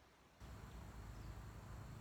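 Faint outdoor background: a low, uneven rumble with a few faint insect chirps, cutting in suddenly after a brief near silence.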